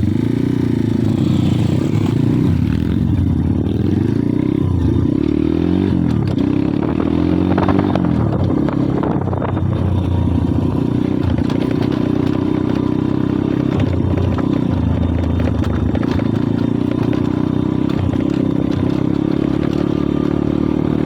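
Pit bike's single-cylinder engine running under way, its revs rising and falling repeatedly as the rider works the throttle and gears.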